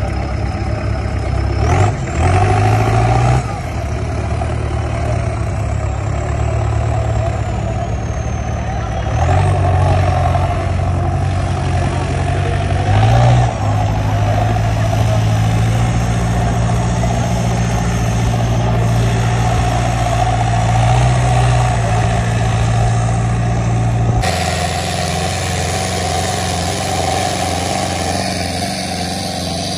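Modified farm tractor's diesel engine running hard under heavy load as it drags a chained sled of iron weight plates, with repeated surges in revs. A high whistle rises and falls over the first several seconds, and the sound cuts abruptly to another tractor's engine about three quarters of the way through.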